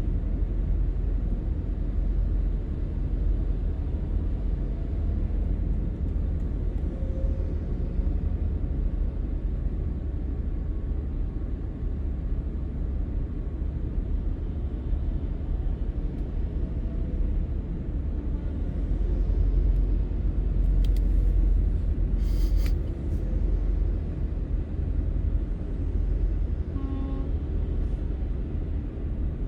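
Steady low rumble of a convoy of trucks and other vehicles going by, swelling about twenty seconds in, with a few brief clicks soon after and a short tone near the end.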